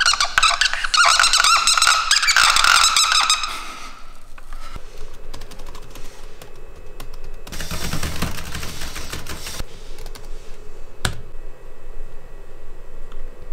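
Felt-tip marker squeaking on a whiteboard as tick marks are drawn quickly, followed by key clicks of typing on a computer keyboard.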